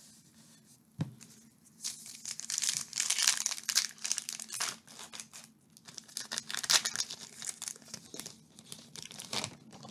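A Topps Chrome baseball card pack's wrapper being torn open and crinkled in the hands, a dense crackling from about two seconds in until near the end, with a short pause midway. A single knock about a second in.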